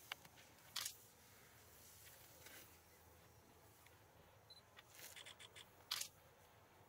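Near silence with a few brief clicks and rustles, the sharpest about a second in and just before the end.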